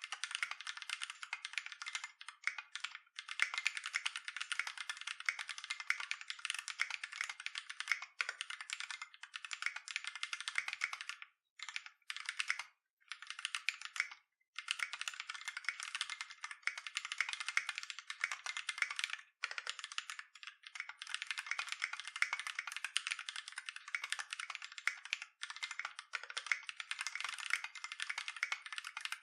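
Custom mechanical keyboard with Holy GSUS tactile switches and Tai Hao Avatar III keycaps being typed on steadily, a fast run of clacky keystrokes broken by a few short pauses.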